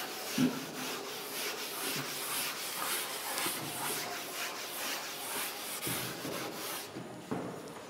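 Chalkboard eraser (duster) scrubbing chalk off a blackboard in quick back-and-forth strokes, stopping about seven seconds in.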